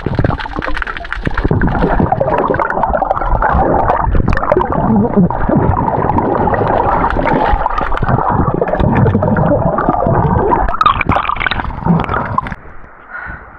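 Underwater sound of a person swimming: muffled churning water and gurgling bubbles against an action camera's housing. Near the end the camera comes up to the surface and the churning falls away.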